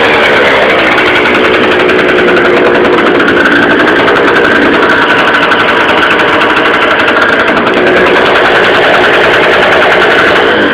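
Scooter engine fitted with Stage6 tuning parts, running steadily after its revs drop back at the start.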